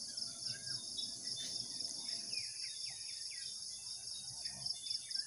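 Insects trilling in a steady, evenly pulsing chorus, with a few short falling bird chirps in the middle.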